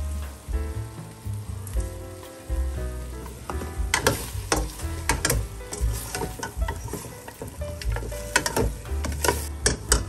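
Food sizzling as it is sautéed in oil in a pan, with a utensil stirring and scraping against the pan in sharp clusters of strokes from about four seconds in. Soft background music plays underneath.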